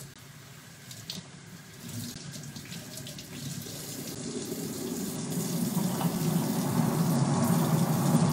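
Kitchen faucet running into a stainless-steel sink, the water splashing as hands rinse something under it, growing steadily louder.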